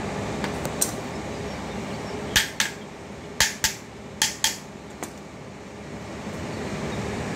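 Hammer striking metal on a three-phase electric motor's end shield during reassembly: a light tap, then three pairs of quick sharp taps about a second apart and one more tap, over a steady background hum.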